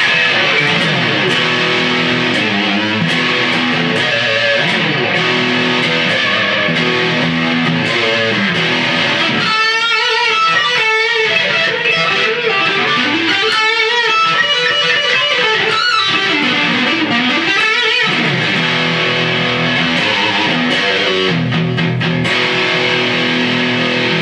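Ibanez Premium electric guitar played with overdrive: held chords at first, then a fast lead run with wavering, bent notes from about ten seconds in, and chords again near the end.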